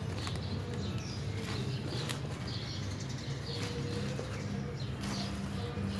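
Rustling and scraping of loose potting mix as it is scooped by hand out of a plastic pot and tipped back into a plastic sack, with the sack's plastic crinkling.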